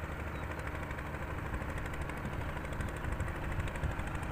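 Small inboard engine of a wooden fishing boat idling steadily, a low even running note.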